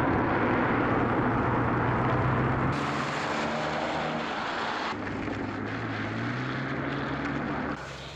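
A car driving along a wet road: a steady engine note under the hiss of tyres on the wet surface, the sound shifting abruptly twice partway through.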